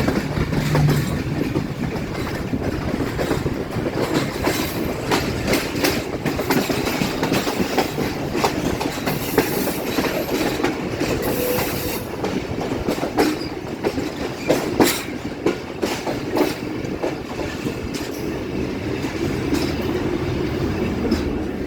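The Awam Express's passenger train rolling past as it pulls out, its wheels clattering over the rail joints in a steady run of clicks and knocks. There are brief high squeals from the wheels about halfway through.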